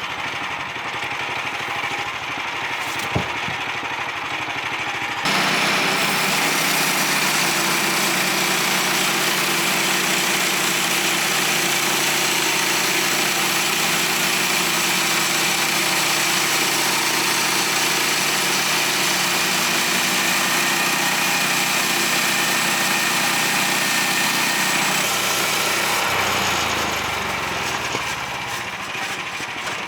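Woodland Mills HM126 bandsaw mill's gas engine running, then from about five seconds in a much louder, hissing cut as the band blade saws through white pine, steady for about twenty seconds before dropping back to the engine alone near the end.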